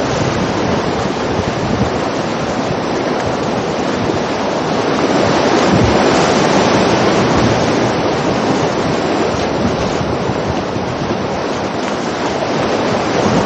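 Rushing whitewater of river rapids churning around a canoe, heard close from the boat as a loud, steady roar of water.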